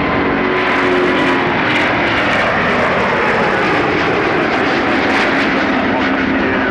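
Airbus A350's twin Rolls-Royce Trent XWB turbofans at takeoff power as the airliner climbs out. A loud, steady jet rush with a tone that slides slowly lower as it passes.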